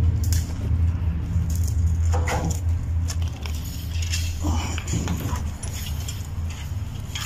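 Footsteps rustling and snapping through brambles and ivy, with light metallic rattles from a wire-mesh fence, over a steady low rumble.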